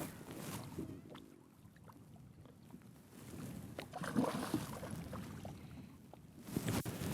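Wind buffeting the microphone on an open fishing boat, with a few light knocks and clicks; the gusts swell about four seconds in and again near the end.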